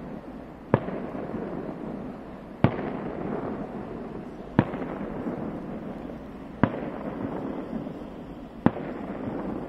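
Aerial firework shells bursting: a sharp bang about every two seconds, five in all, each trailing off in a fading rumble.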